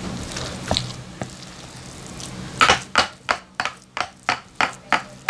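A wooden spoon working ground pork in a bowl: a few faint strokes at first, then from about halfway a steady run of wet slaps, about three a second. The meat is being beaten until it turns sticky, a stage in making homemade luncheon meat.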